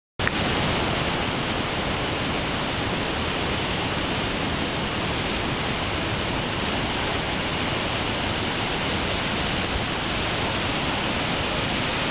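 Kegon Falls, a large waterfall, giving off a steady, even rush of falling water that cuts in abruptly just after the start.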